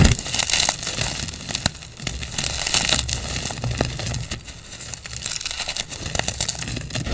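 Gym chalk blocks being squeezed and crushed in bare hands, crumbling into powder with a dense run of small crunches and crackles. A heavier crunch comes right at the start.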